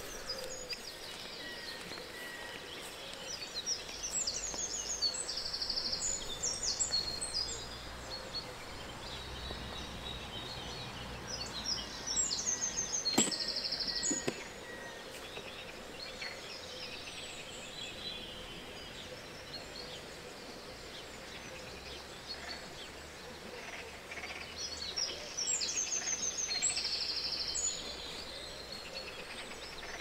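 Songbirds singing outdoors: several phrases of quick trills and repeated high notes, coming and going, over a steady low background rumble. A single sharp click sounds about 13 seconds in.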